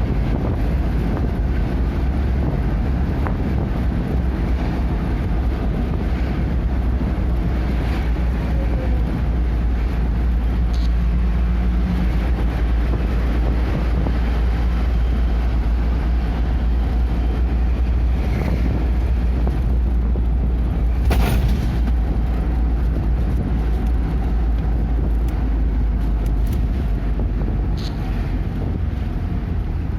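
Steady low rumble of a vehicle driving, engine and road noise heard from inside the cabin, with one short sharp click about twenty-one seconds in.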